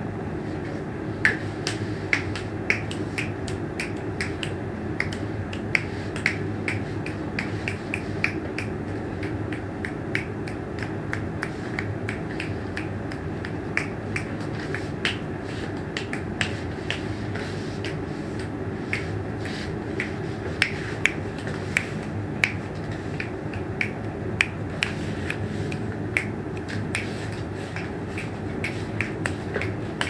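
Sharp snapping clicks at an uneven pace, often two or three a second and fewer for a few seconds past the middle, over a steady low hum.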